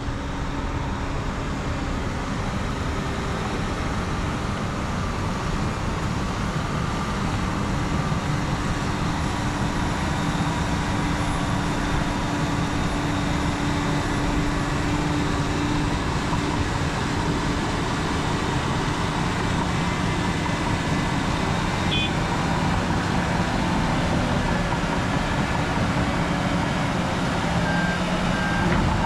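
Heavy diesel earthmoving equipment running steadily under load: an excavator and haul trucks working dirt. A few short beeps sound near the end.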